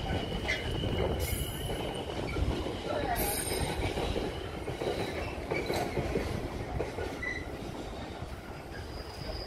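Freight train hauled by a Class 66 diesel locomotive pulling away, its wagons rumbling along the rails with a thin, high-pitched wheel squeal in the first two seconds and fainter squeals later.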